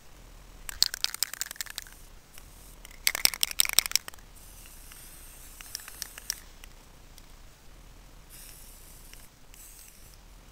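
Paper crinkling and rustling in two short bouts of crackly handling noise, about a second in and again around three seconds in, the second louder.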